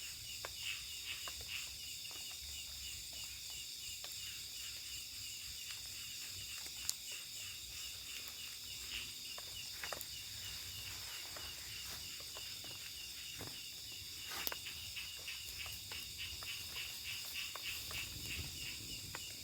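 Forest insect chorus of crickets and similar insects: steady high-pitched chirring in several layers with a fast pulsing trill, broken by a few sharp clicks.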